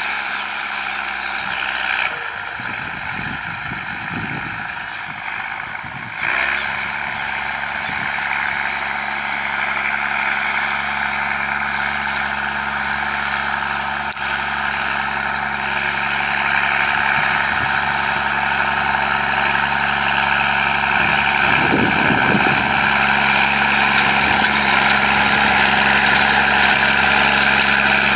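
New Holland 7840 tractor's diesel engine running steadily under load while pulling an 18-disc harrow through dry ground, growing louder as the tractor comes closer.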